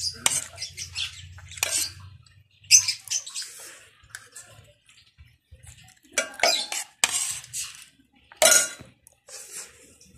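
Eating sounds: a utensil clinking and scraping against a dish in short, scattered bursts with pauses between them.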